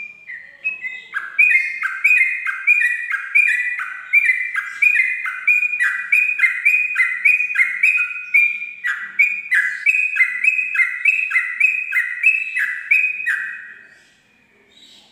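Yellow-vented bulbul (trucuk) singing a long rolling 'ropel' song: a fast, even run of repeated falling whistled notes, nearly three a second, that stops near the end.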